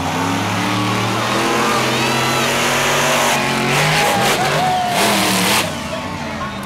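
Monster truck supercharged V8 engines revving hard, their pitch rising and falling as the trucks race, over a loud wash of arena noise.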